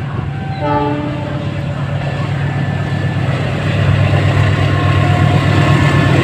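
CC206 diesel-electric locomotive approaching, its engine a steady low drone that grows louder throughout, with a brief short tone about a second in.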